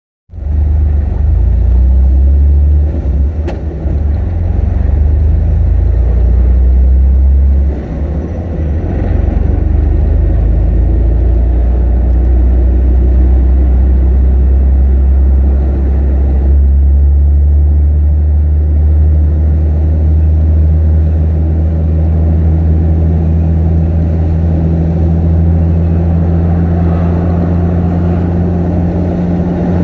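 Vehicle driving, heard from inside the cabin: a steady low engine drone mixed with road noise. The sound dips briefly about eight seconds in and changes tone about sixteen seconds in.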